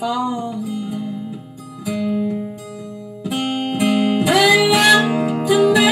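Acoustic guitar played slowly, chords left to ring, with a woman singing: a sung phrase trails off at the start and a new one rises in about four seconds in.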